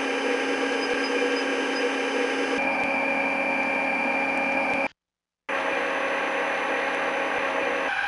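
Gearbox noise played back from a microphone-array beamforming recording: a steady, dense mechanical hum made of many fixed tones whose mix shifts as the listening point moves over the housing. A faint beeping about twice a second comes from one spot in the first couple of seconds. A high steady whine comes in a few seconds in, and the sound cuts out briefly near the middle.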